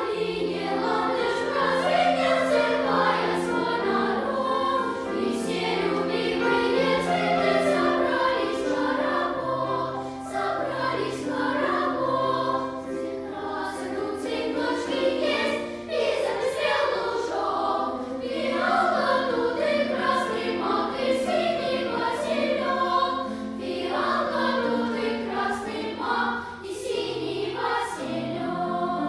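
Children's choir singing, several voice parts sounding at once.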